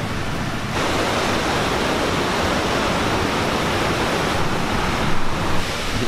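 Steady rushing of the White Drin river's fast water, an even noise that grows louder about a second in.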